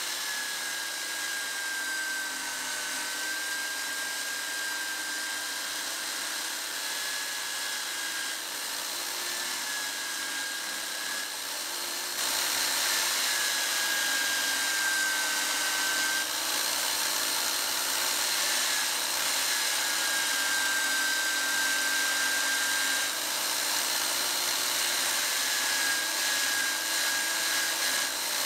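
Drill press spinning a polishing wheel against the steel head of a masonry hammer to a mirror finish. A steady motor whine whose pitch sags briefly as the metal is pressed harder into the wheel, over a rubbing hiss. It grows louder about twelve seconds in.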